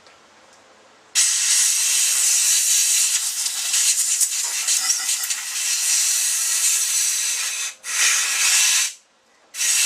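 Compressed air blowing through a small-engine carburetor in one long hiss lasting about six seconds, then two shorter blasts about a second each, clearing out loosened debris and cleaner after the carb cleaning.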